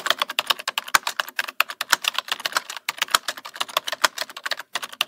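Typing sound effect: a rapid run of keystroke clicks, about ten a second, with a heavier thud roughly once a second, matching text being typed onto the screen letter by letter.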